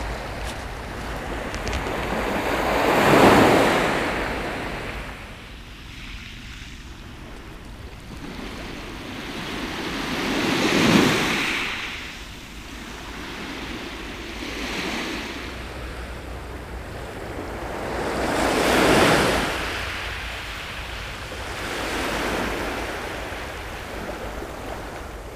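Small sea waves breaking gently and washing up over a shingle and sand shore, each wash swelling and fading away. Three larger washes come about eight seconds apart, with smaller ones between.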